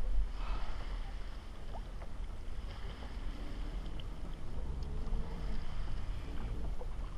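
Wind rumbling on the microphone over water lapping against a plastic sit-on-top kayak hull as it drifts on a lake, with a few light knocks.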